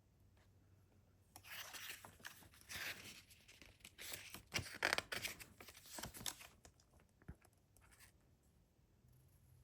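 CD packaging being torn open: a run of tearing, crinkling bursts with a few sharp clicks, lasting about five seconds and then stopping.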